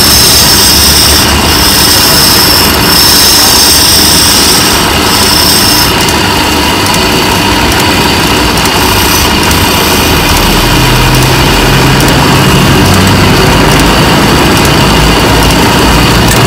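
Motorized wood lathe running loudly and steadily while a hand-held turning chisel scrapes shavings from a spinning wooden spindle. A high cutting hiss comes in short stretches with brief gaps through the first six seconds, then stops.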